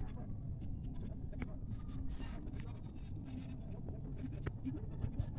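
Knit cloth being handled and slid across a cutting mat: soft rustling with a few light taps, and a brief louder swish about two seconds in, over a steady low background rumble.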